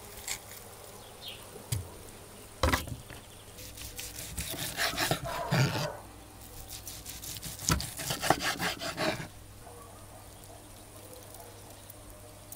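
A serrated knife sawing back and forth through a cooked steak and scraping a wooden cutting board. It comes in two runs of quick strokes, each starting with a sharp knock on the board.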